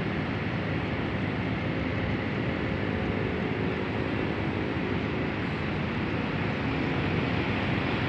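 Steady urban background noise: a constant rumble and hiss with no distinct events.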